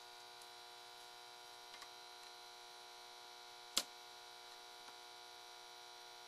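Faint steady electrical hum made of several fixed tones. A couple of light ticks come through it, and one sharp click just under four seconds in.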